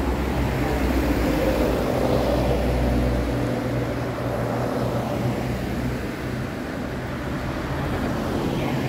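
Motorcycle engine running steadily with rushing road and wind noise while riding. The deep low hum of the engine drops away about three and a half seconds in.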